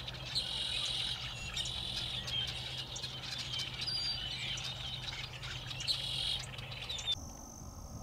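A flock of red-winged blackbirds calling: many overlapping chirps and short chips, with louder clusters of buzzy calls every second or two. The calls stop about seven seconds in.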